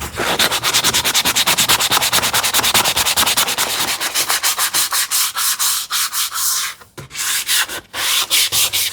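Sandpaper rubbed by hand back and forth over the inside corner edges of a wooden leg assembly, easing the sharp edges. The strokes are fast and even, about five or six a second, with a short pause about seven seconds in before they resume.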